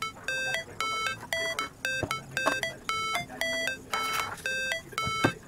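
Background electronic music: a bright, beeping synth pattern of pitched notes that repeats about twice a second.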